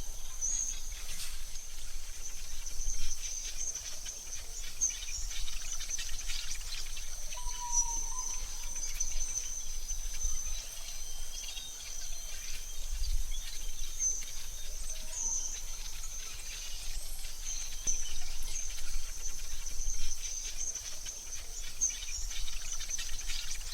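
AI-generated forest ambience: a steady high insect trill, with short bird calls about eight seconds in and again near the end, over a low rumble.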